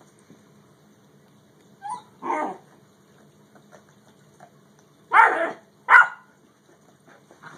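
A dog barking in short bursts: a quick pair about two seconds in, then two louder barks about five and six seconds in.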